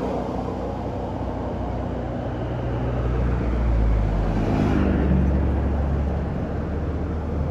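Diesel bus engine passing close by on the road: its low drone swells, rises in pitch about four to five seconds in, then eases off.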